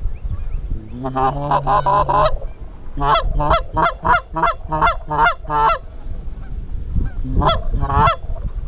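Canada goose honks: a drawn-out call about a second in, then a quick run of about nine short honks, and two more honks near the end, over a low wind rumble.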